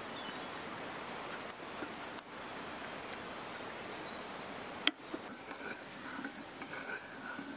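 Risotto being stirred with a wooden spatula in a frying pan on a wood-burning stove as butter is worked in, a steady soft sizzle and scrape. A sharp knock about five seconds in.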